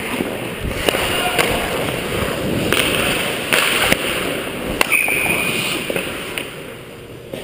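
Ice hockey skate blades scraping and carving on the ice, with two hissing surges about three seconds in and several sharp clacks of sticks on ice and puck.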